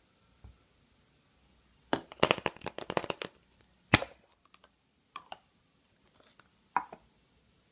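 A surprise egg and its toy being handled: a quick run of crinkling and cracking, one sharp snap about four seconds in, then a few small clicks.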